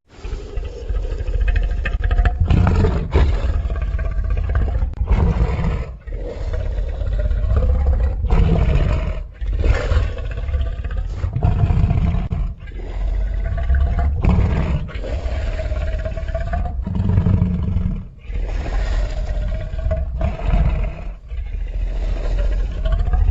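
Pitch-lowered kaiju monster roars and growls: a run of long, deep calls with brief breaks between them.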